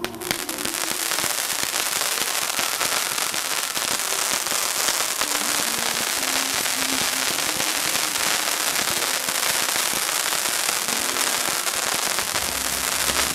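Firework ground fountains firing: a dense, steady crackling hiss that starts suddenly and keeps going. A low rumble joins in near the end.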